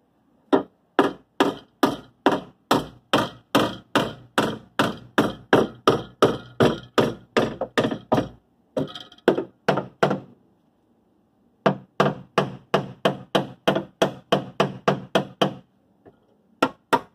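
Small hammer striking dented car-body sheet metal around the rear inner wheel housing in quick, even blows, about three a second. It is pounding the metal back gradually while a power puller holds it under tension, to take the stress off so the sheet metal doesn't tear. The blows stop for about three seconds midway, then resume.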